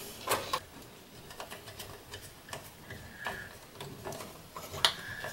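Scattered light clicks and taps from hands handling a 14-gauge wire and fitting it to a contactor terminal in an electrical control panel. The sharpest click comes just before the end.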